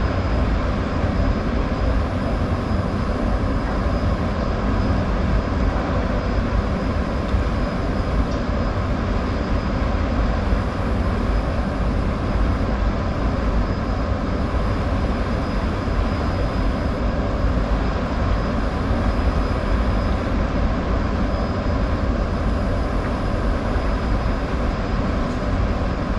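Steady, unbroken low roar from the dam below which the angler stands, heaviest in the bass, with a faint high steady whine on top.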